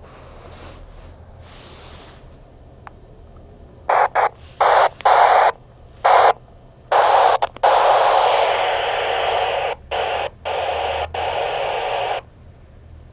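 FM receiver hiss from a Yaesu VX-150 handheld transceiver's speaker with the squelch open, no signal on the channel. It cuts on and off in short bursts from about four seconds in, then runs steadily for about five seconds and stops abruptly.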